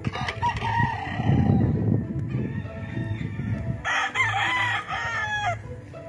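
Roosters crowing across a field: one crow just after the start, then a louder crow about four seconds in, lasting over a second. A low rumbling noise is loudest in the first half.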